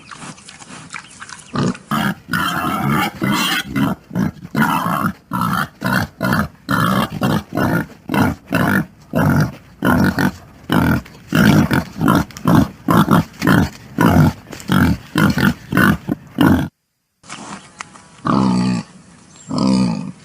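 Pigs grunting and squealing in a fast run of loud, short calls, about two a second, which breaks off abruptly. A few longer, pitched grunts follow.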